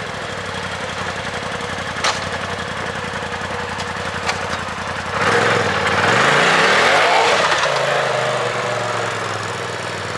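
Polaris RZR Turbo S side-by-side's turbocharged twin-cylinder engine running at low speed, with two sharp clicks. About five seconds in it revs up and down as the vehicle pulls away, then eases off as it drives off.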